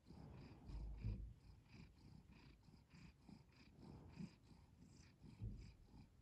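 Domestic cat purring softly and steadily, with two low bumps about a second in and near the end.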